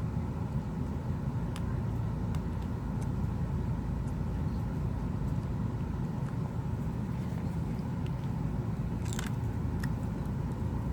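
Steady low background rumble, with a few faint light clicks from small phone parts being handled.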